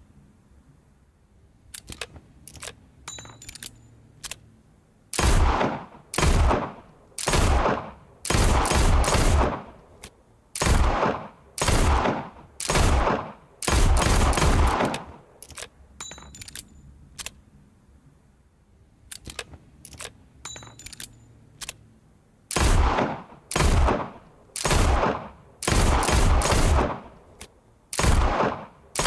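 Revolver gunshot sound effect: a few faint sharp clicks, then a string of loud shots about a second apart, some fired in quick succession, each with a short echoing tail. The pattern repeats: more faint clicks in a quiet stretch, then a second string of shots.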